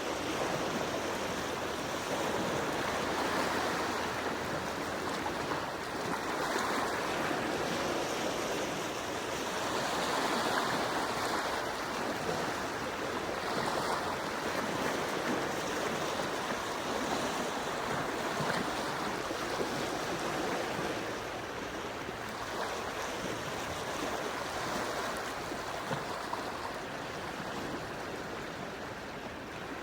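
Gentle ocean waves washing onto the shore: a steady surf wash that swells and eases every few seconds.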